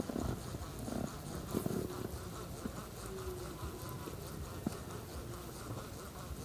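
Baitcasting reel being cranked steadily to retrieve a lure, its gears giving a fast, even whirring buzz, with a few soft knocks from handling the rod and reel.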